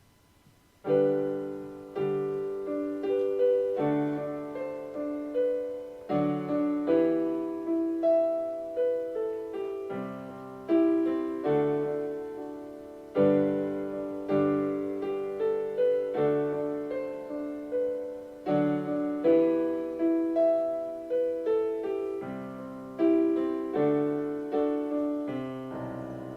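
Solo piano introduction to a slow song. Chords and a melody line are struck and left to ring out one after another, starting about a second in.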